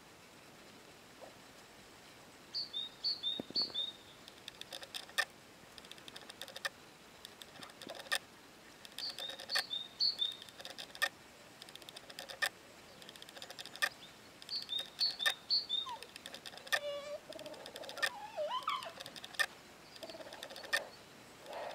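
A small songbird repeats a short phrase of quick high chirps three times, several seconds apart, over scattered sharp clicks. Near the end come a few longer sliding, wavering calls.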